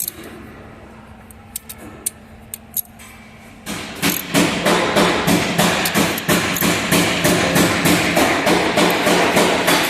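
Hammering: a few light clicks, then about four seconds in a loud, rapid run of hammer blows starts, about four a second and steady.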